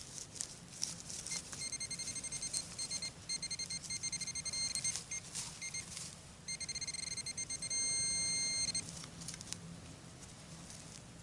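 Garrett Apex metal detector beeping, a high steady electronic tone stuttering in rapid pulses in two spells, about a second and a half in and again past six seconds, as it signals targets under the coil. Scattered light clicks and rustles run underneath.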